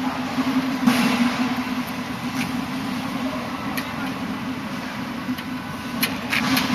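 Factory-floor noise on an air-conditioner production line: a steady machinery hum and hiss, with a few short clicks and knocks, most of them near the end.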